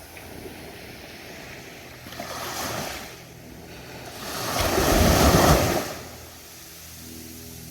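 Ocean waves breaking on the beach: a small wave washes in about two seconds in, then a bigger one crashes and surges up the shore about four to six seconds in, over a steady background of surf.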